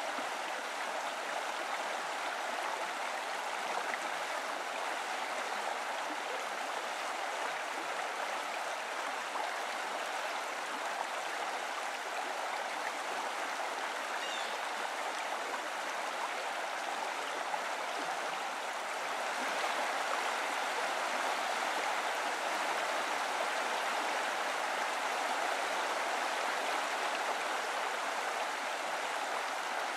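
Running water rushing steadily, as from a stream or the spring's inflow; it grows slightly louder about two-thirds of the way through.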